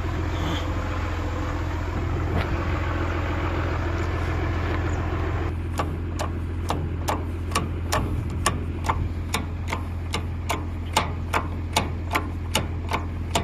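Tractor engine running steadily. From about halfway in, a regular clicking sets in at about two to three clicks a second.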